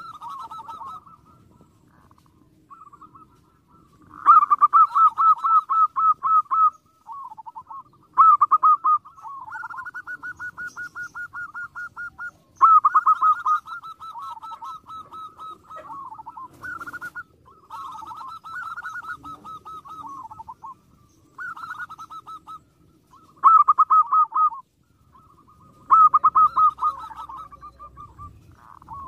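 Zebra dove singing: runs of rapid pulsing coos, each lasting one to three seconds, repeated over and over with short pauses.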